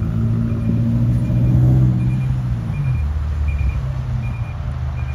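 Heavy diesel dump truck's engine running at low speed as it turns in, its note dropping a little about three seconds in. A short high warning beep repeats about every three-quarters of a second.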